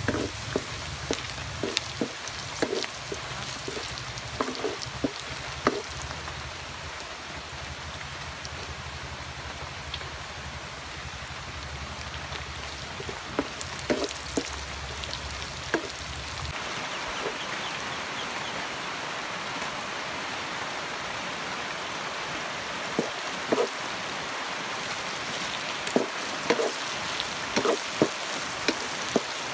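Hot oil sizzling in a wok as ginger and then sliced red onion fry, with the spatula scraping and knocking against the wok now and then. The sizzle grows denser and brighter about halfway through.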